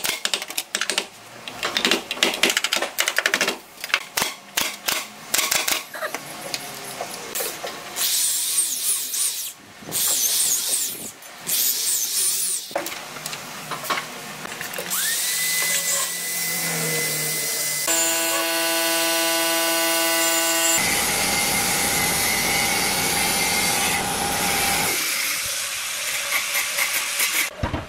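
Tool noise from fitting a lock into a wooden door: a quick run of sharp taps and clicks for the first several seconds, then steadier power-tool running, with a brief steady tone partway through.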